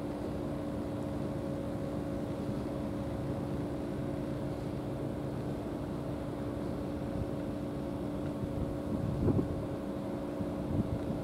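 Steady mechanical drone with a constant low hum. A brief gust of wind hits the microphone about nine seconds in.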